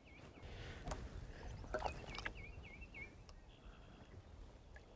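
Small waves lapping against a boat hull with a low rumble of wind, a few short knocks about one and two seconds in, and a bird singing a quick run of four or five repeated slurred whistled notes about two seconds in.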